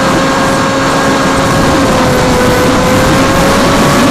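An FPV model aircraft in flight, heard from its onboard camera: the electric motor and propeller whine at one steady pitch over heavy wind rush, the pitch rising slightly near the end.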